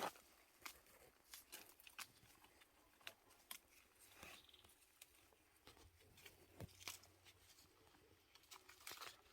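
Faint, scattered rustling and crinkling with light clicks, as mulberry leaves are picked and handled with plastic bags.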